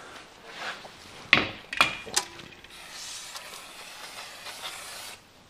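A few sharp metal knocks and clinks, then an aerosol cleaner can spraying onto a clutch pressure plate in a steady hiss for about two and a half seconds that stops suddenly just before the end, cleaning oil off the clutch surfaces.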